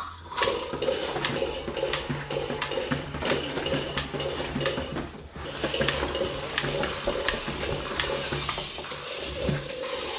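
Motorised plastic toy dinosaurs running, their gears whirring with a steady pulsing hum, with many sharp plastic clicks and clatters on a wooden table.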